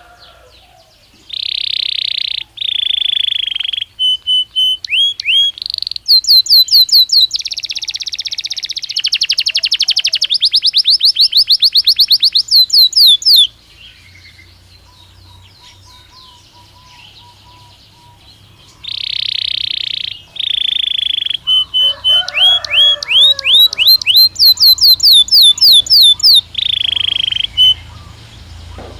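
Belgian canary singing in two long, loud song bouts separated by a pause of about five seconds. Each bout strings together buzzy trills and fast runs of repeated whistled notes that sweep downward.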